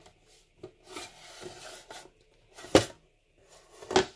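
Thick aluminum case cover of a Collins 331A-8A horizontal situation indicator scraping as it is slid off the instrument's chassis, metal rubbing on metal for about a second. Then comes a sharp knock, the loudest sound, and another knock near the end.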